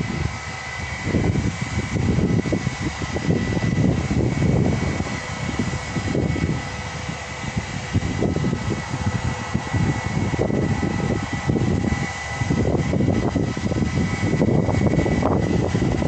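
An airliner on approach, heard from far off as a steady high whine from its jet engines, under a gusting, uneven rumble of wind on the microphone.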